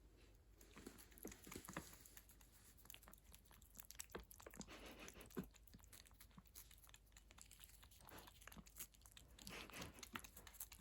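A cat licking Churu lickable treat paste, with faint, irregular wet smacking and tongue clicks.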